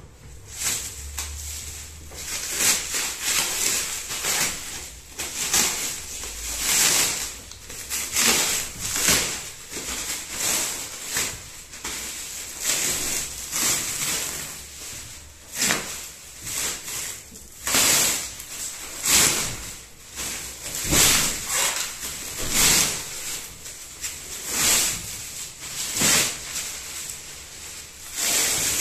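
Clear plastic wrapping on a rolled-up mattress crinkling and rustling as it is cut and pulled away. The noisy bursts come roughly once a second.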